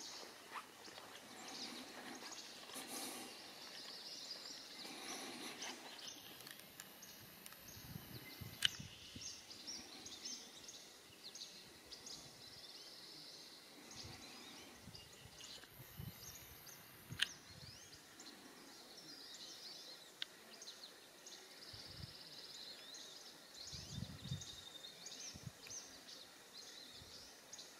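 Faint outdoor ambience with small birds chirping on and off and a few soft low thumps. Twice, a thin high whine runs for a second or more and ends in a click: the camera's zoom motor.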